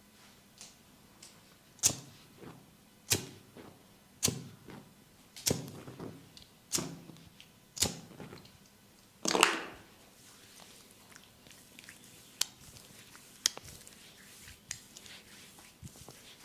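Hands slapping on skin during a head and neck massage with oil: six sharp slaps about a second apart, then a longer, louder slap about nine seconds in, followed by softer light taps and rubbing.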